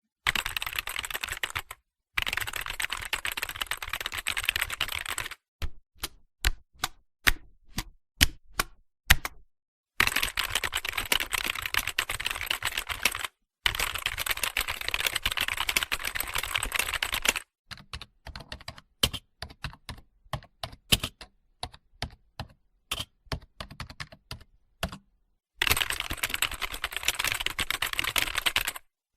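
Computer keyboard typing: long runs of fast, continuous key clicks alternate with passages of separate, slower key presses. Each section stops with a sudden cut to silence.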